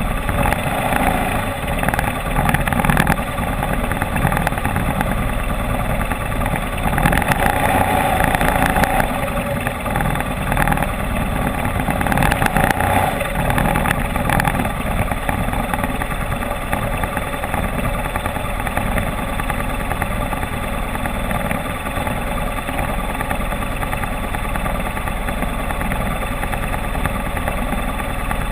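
Motorcycle engine running on an off-road ride. The throttle swells several times in the first half, then the engine runs more evenly.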